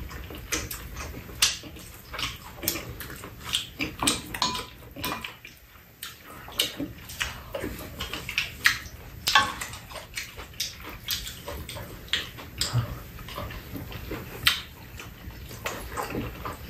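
Close-up eating sounds: two people chewing and smacking on stir-fried chicken, with many short, irregular clicks and smacks.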